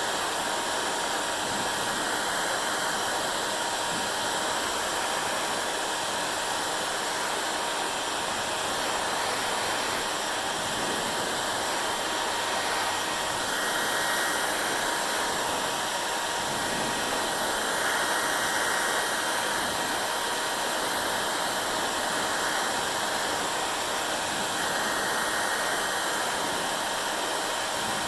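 Electric hair dryer running steadily: a constant rush of blown air with a faint steady whine from its motor and fan. It grows slightly brighter a few times.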